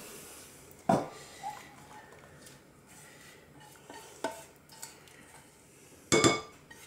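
Spatula scraping béchamel out of a non-stick saucepan held over a glass bowl, with a few short knocks of utensil and pan: one about a second in, one about four seconds in, and the loudest near the end.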